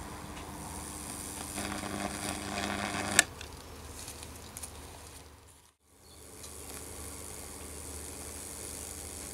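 High-voltage current from a microwave-oven transformer burning a Lichtenberg figure into wet plywood: a buzzing crackle with a steady hum that grows louder, ending in one sharp loud snap about three seconds in as the burn paths join and the arc shorts across the board. After a brief drop-out, the quieter buzzing crackle of a fresh burn starting at the electrodes.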